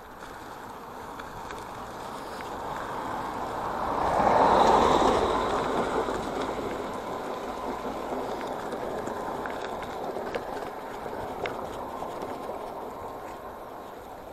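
Riding a bicycle along an asphalt road: rolling tyre and wind noise with light clicks and rattles. The rush swells to a loud peak about four to five seconds in and slowly eases off.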